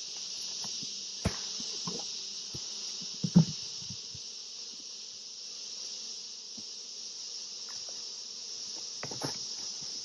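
A steady high insect chorus with a faint hum of bees, broken by several knocks, the loudest about three and a half seconds in, as the beehive lid is set back down on the hive boxes.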